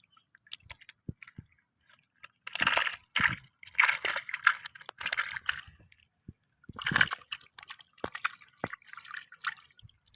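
Water sloshing and splashing in irregular bursts, with scattered drips and clicks.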